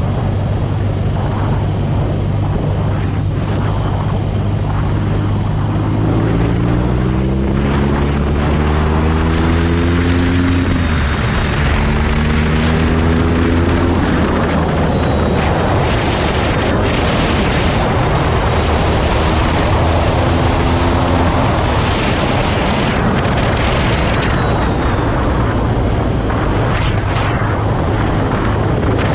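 BMW R nineT Urban G/S's boxer twin engine running under way, its note rising as the bike accelerates about six seconds in and again near twenty seconds, under a constant rush of wind noise.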